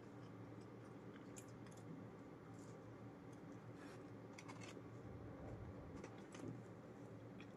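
Faint eating sounds: scattered small clicks and crunches of chewing and mouth noises, over a steady low hum.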